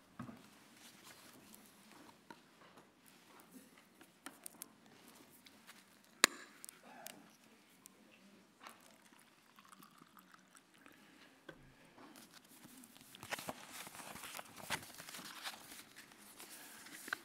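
Quiet room tone picked up by a lectern microphone, with scattered small clicks and rustles of handling at the lectern. There is one sharp click about six seconds in, and the rustling grows busier near the end.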